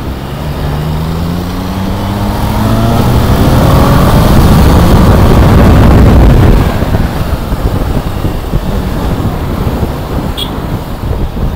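Motorcycle engine accelerating hard, its pitch rising steadily for about four seconds, then a loud rush of wind at speed that drops off sharply past the middle, leaving steady engine and road noise.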